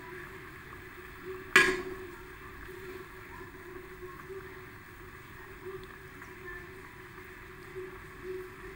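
Tempe braising in a wok of liquid, simmering with a steady low bubbling. A single sharp click about a second and a half in.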